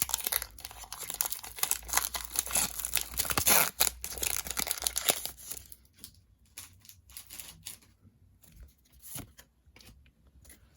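Foil Pokémon booster pack being torn open and crinkled, loud for about the first five seconds, then only quieter scattered rustles and clicks.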